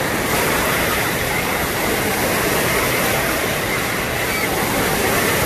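Steady rush of waterfalls pouring down the sides of an artificial rock volcano.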